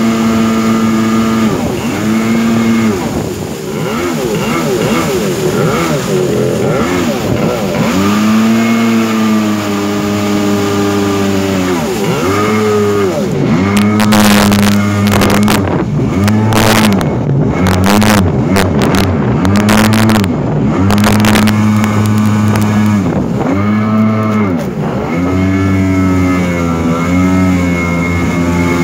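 Jet-ski engine driving the jet drive of a small homemade boat at speed, its pitch dipping and climbing back again and again as the throttle is eased and reopened, over the rush of water from the jet. In the middle come several seconds of sharp crackling bursts of noise on the microphone.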